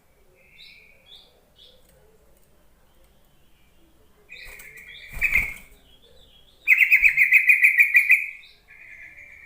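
Yellow-vented bulbul calling: a few short buzzy notes, then a call about halfway through with a sharp thump or wing flutter over it. The loudest part is a rapid chattering call lasting about a second and a half, followed by a softer call near the end.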